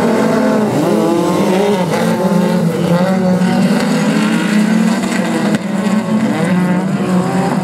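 Several rallycross race cars' engines running hard at once, their overlapping engine notes rising and falling as the pack accelerates through the corners.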